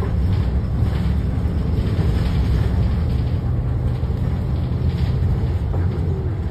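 Los Angeles Metro bus running, heard from inside the cabin as a steady low engine and road rumble.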